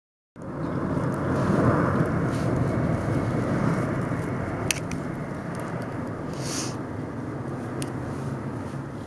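Steady outdoor background rumble that starts suddenly just under half a second in, with a few light clicks and a short rustle from hands handling a firework's igniter wire.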